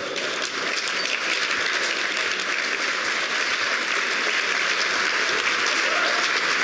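A large audience applauding steadily, the clapping slowly growing louder.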